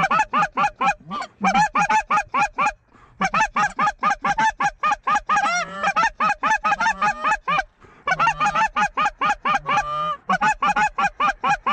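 Hand-blown goose calls honking and clucking in a fast, even run of about five or six notes a second, each breaking from a low grunt up to a high note. A couple of drawn-out gliding notes are mixed in and there are two short pauses. The calling is aimed at a flock of geese to draw it into the decoys.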